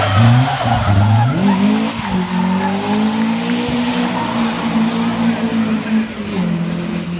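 Classic rally car's engine at full throttle as it slides sideways through a wet corner and accelerates away. The pitch climbs about a second in, holds high, then drops near the end.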